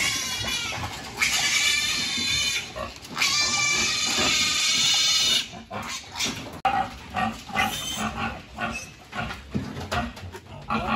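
Piglets squealing as they are caught and held for a vaccine injection: three long, loud, high-pitched screams, then after about five and a half seconds shorter squeals and grunts with a few knocks.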